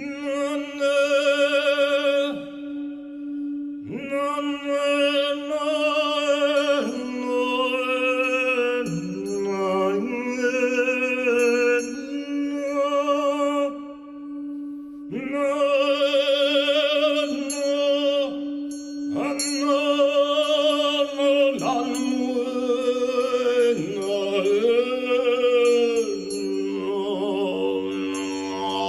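Sung vocal toning: a voice holding long, wavering vowel tones in phrases of a few seconds over a steady low drone, with short breaks about three seconds in and near the middle.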